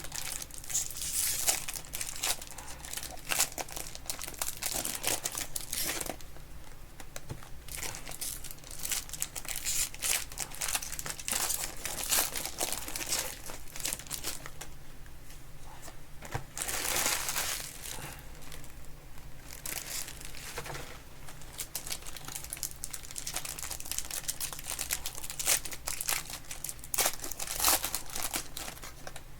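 Plastic wrapping on trading-card boxes and packs crinkling and tearing as they are opened by hand, in irregular crackly bursts with short pauses between them.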